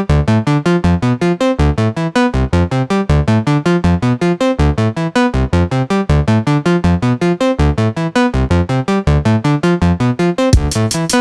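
Synthesizer music: a fast arpeggio of short, evenly spaced keyboard-synth notes over low bass notes. A hissing, cymbal-like wash comes in near the end as the beat starts.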